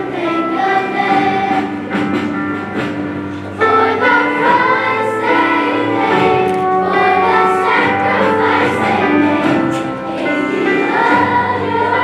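Children's choir singing a patriotic song with instrumental accompaniment, in held phrases; a new, louder phrase comes in about three and a half seconds in.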